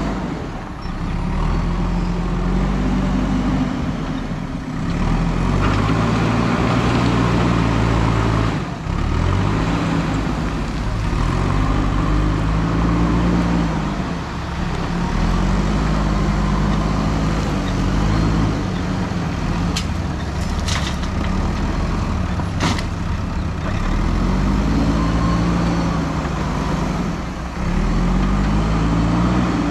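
JCB 3DX backhoe loader's diesel engine revving up and dropping back every few seconds as the loader bucket works the pile. A few sharp clicks come about two-thirds of the way through.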